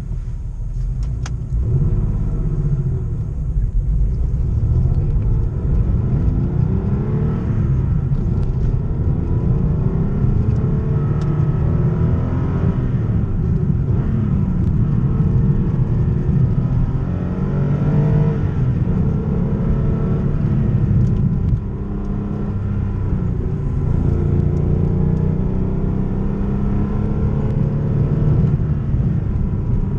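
Porsche 964 Carrera 2's air-cooled 3.6-litre flat-six, heard on board while driving: revs repeatedly rise and fall through gear changes, with a brief drop in level about three-quarters of the way in.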